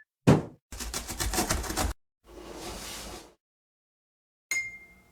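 A string of edited sound effects: a sharp thud, a fast clatter of clicks lasting about a second, a hissing whoosh, then after a short silence a final hit with a brief ringing tone.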